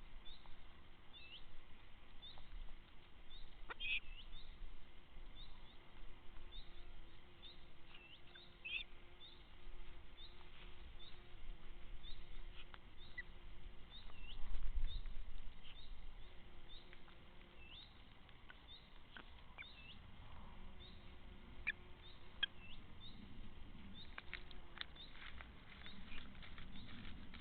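A small bird chirping over and over in short high notes, about once a second. Several light sharp taps come near the end.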